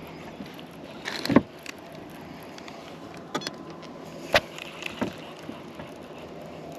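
A few short, sharp knocks and clicks of gear being handled against a plastic fishing kayak's hull, the loudest a little past the middle, over a low steady hiss.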